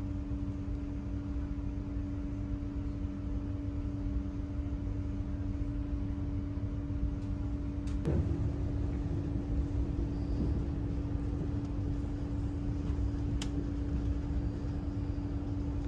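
Moving passenger train heard from inside the carriage: a steady low running rumble with a constant hum. A knock sounds about eight seconds in and a sharp click near the end.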